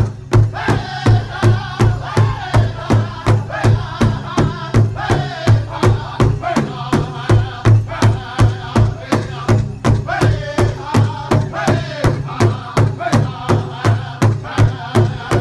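Powwow drum group singing in high, strong voices over a large shared drum struck in unison by several drummers with sticks, in a steady beat of about two and a half strokes a second.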